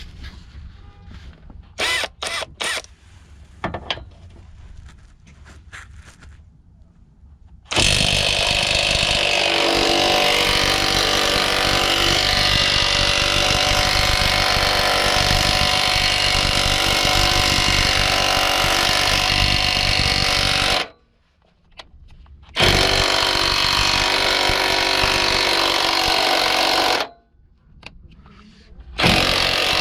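Cordless right-angle 1/2-inch-drive impact wrench. A few short blips come first, then it hammers steadily for about thirteen seconds, stops briefly, and runs again twice more in long runs.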